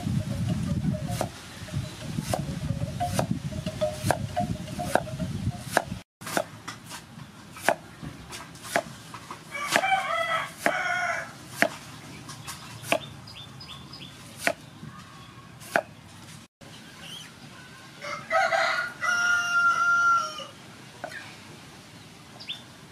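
Steel cleaver slicing a peeled bamboo shoot on a wooden chopping board, each cut ending in a sharp knock on the board about once a second. A rooster crows twice, about ten seconds in and again near the end.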